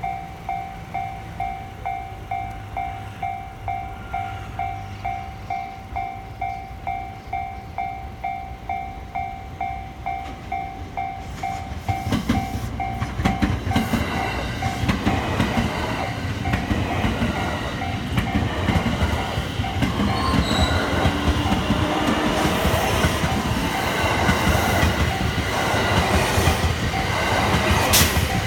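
Japanese level-crossing warning bell ringing in steady, evenly spaced strikes, about two a second. About twelve seconds in, a train reaches the crossing and passes, its wheels clattering over the rails and drowning out the bell.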